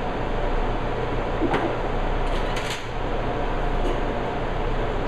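Steady fan-like hum of a commercial kitchen's ventilation, with a few light clinks of kitchenware around the middle.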